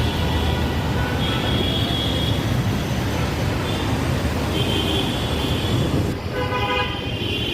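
Street traffic with a steady low rumble and vehicle horns sounding several times: two short high horn notes in the first half, and a fuller horn toward the end.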